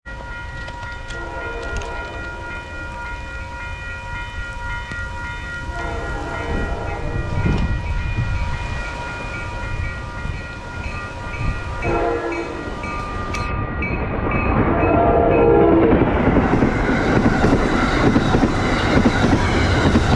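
Amtrak Downeaster train approaching with its horn sounding a long chord, fading in and out, that stops about two-thirds through, then the train passing close with a rising rumble and clatter of wheels on the rails.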